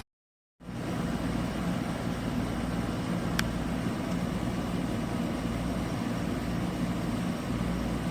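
Shinco 12,000 BTU portable air conditioner running steadily, a low hum under a constant rush of noise, after a short cut to silence at the very start. A single brief click sounds about three and a half seconds in.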